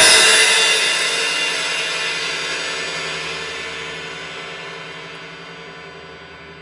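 A final hit on a drum kit, with a crash cymbal struck together with the drums and left ringing, fading slowly away.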